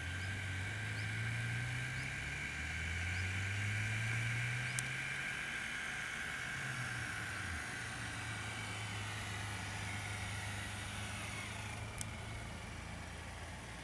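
An engine running: its low hum rises in pitch twice in the first five seconds, then holds steady, with a higher steady whine that fades out near the end.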